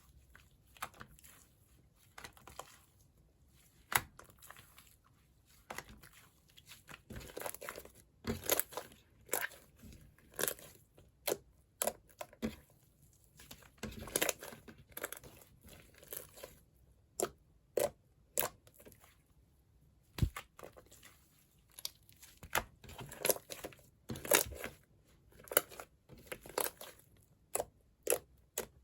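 Jiggly slime mixed with clay, squeezed and pulled by hand, giving irregular sticky pops and crackles, some loud and sharp, with short quiet gaps between them.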